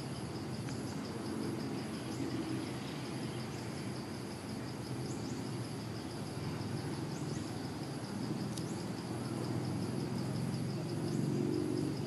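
Insects trilling in a steady, evenly pulsing high chorus over a low steady rush of wind, with a few short bird chirps.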